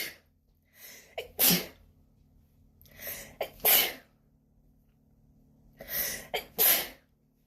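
A woman sneezing three times in a row in a sneezing fit, each sneeze led in by a short intake of breath, about two to three seconds apart.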